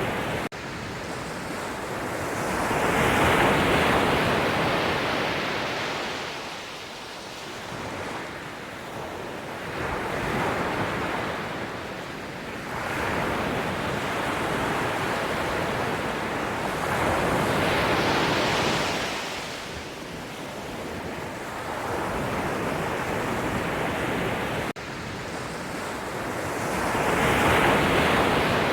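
Sea waves breaking and washing up on the shore, a rushing surge that swells and ebbs every several seconds, the biggest crashes about three seconds in, again around eighteen seconds and near the end.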